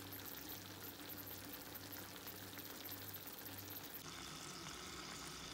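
Faint, steady crackle of a clay tajine cooking on the stove, a soft sizzle with no distinct events; the background changes about four seconds in.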